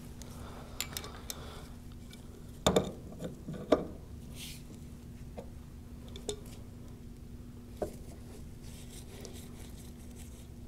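Scattered metallic clinks and knocks of hand tools and pump parts being handled while a displacement pump is fitted to a paint-striping machine, with two louder knocks about three and four seconds in. A faint steady hum runs underneath.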